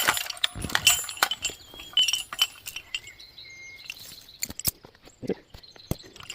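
Metal chain and hooks of a hand ratchet chain puller clinking as the gear is handled: a string of irregular sharp metallic clicks with short ringing, thinning out in the second half.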